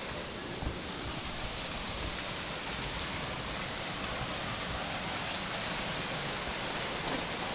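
Steady rush of a fast-flowing creek and its waterfall, growing slightly louder toward the end.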